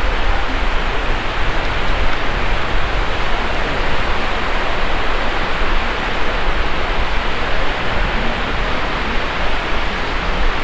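Steady wind buffeting the microphone over the wash of small surf breaking on the beach, a constant rushing hiss with a low rumble.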